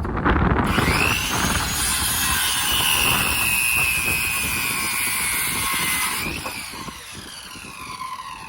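Power saw cutting through a pair of wooden batten strips. A high whine and hiss start abruptly, the whine climbs and holds through the cut, then winds down with a falling pitch near the end.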